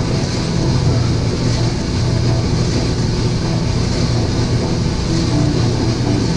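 Probat drum coffee roaster running mid-roast: the drum turning with beans tumbling inside, over a steady low hum and rush from the roaster's motor, fan and burner.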